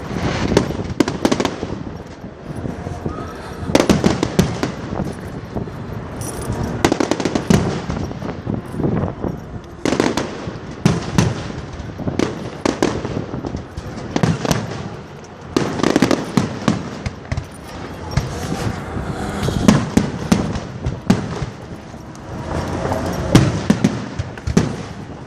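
Fireworks display: a continuous, irregular run of shell bursts, loud bangs with crackling in between, sometimes several in quick succession.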